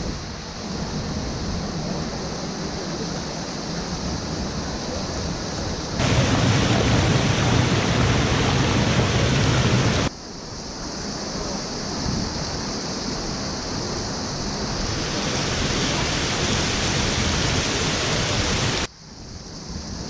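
Waterfall and its cascades: water rushing and splashing over rock, a steady loud rush. It changes abruptly in loudness as the shots are cut, loudest between about six and ten seconds in.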